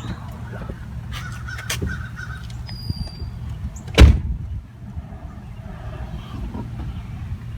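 Low steady running of a vehicle, with one loud thud about four seconds in: a car door shutting.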